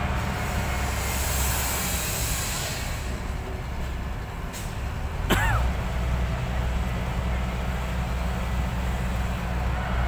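Hyundai 220LC hydraulic excavator's diesel engine running steadily as the machine works and swings, with a high hiss in the first few seconds and a sharp click and brief squeak about halfway through.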